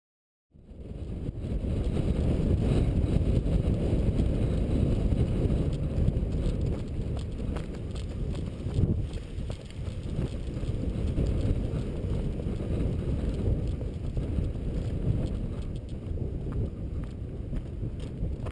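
Wind rumbling on the microphone, starting suddenly about half a second in, with irregular footsteps on a gravel track underneath.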